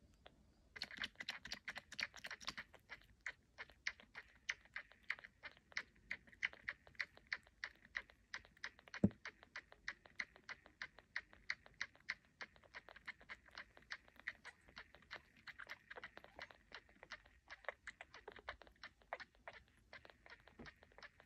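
Kitten suckling on a feeding bottle's nipple: a steady train of small sucking clicks, about three a second, starting about a second in, with one dull thump about nine seconds in.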